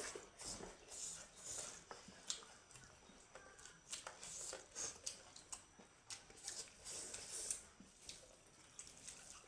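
Close-miked chewing and wet mouth sounds of a person eating: soft, irregular smacks and squishes, a few each second.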